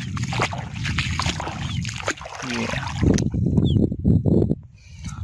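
Shallow river water sloshing and splashing close to the microphone, with clicking and rustling handling noise. It is loudest from about three seconds in. A bird chirps briefly in the second half.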